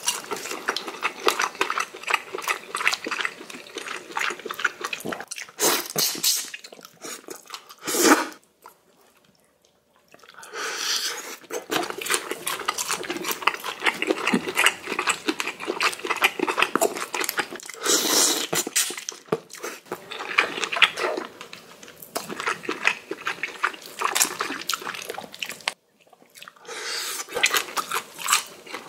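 Close-miked eating sounds: shrimp shells crackling as they are cracked and peeled by hand, mixed with wet chewing and mouth sounds. The sound drops out twice, briefly, at about 8 seconds in and again near the end.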